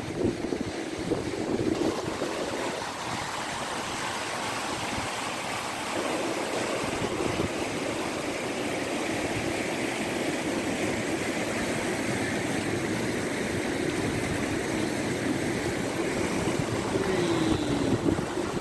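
The River Greta in flood after heavy rain, a steady rush of fast brown water over rapids, with wind on the microphone.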